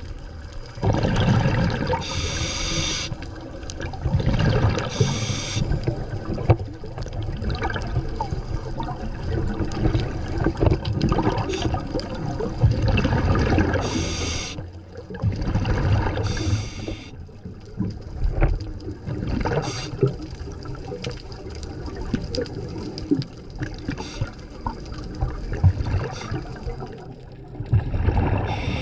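Underwater sound of a scuba diver breathing through a regulator: several short bursts of exhaled bubbles at irregular spacing over a steady low rumble of moving water.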